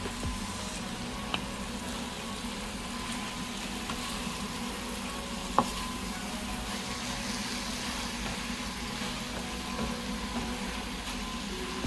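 Onion, onion leaves and green chili sizzling as they are stir-fried in a pan, with a sharp tap about five and a half seconds in.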